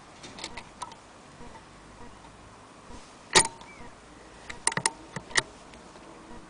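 Small metal parts of a Singer 201K sewing machine being handled at the needle and presser foot, with the machine not running: a few light clicks, one sharp click about three and a half seconds in, then a quick cluster of clicks about a second later.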